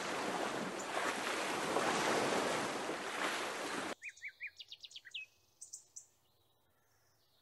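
A steady wash of surf, like waves on water, that cuts off suddenly about four seconds in. Then comes a quick run of bird chirps, a couple more after a short pause, and then quiet.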